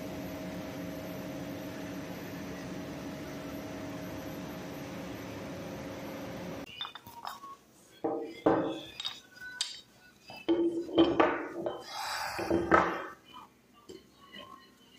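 Powder coating line running with a steady hum and a few held tones, at the outlet of the cooling section where the wire-mesh conveyor belt carries parts out. About seven seconds in the hum cuts off and gives way to irregular clinks and knocks of small powder-coated metal parts being handled.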